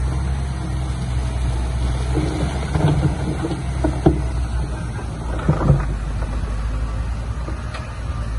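Heavy diesel engine of earthmoving machinery, most likely the bulldozer, running steadily with a low rumble. Short knocks and clanks come in a cluster about three to four seconds in and again about halfway through.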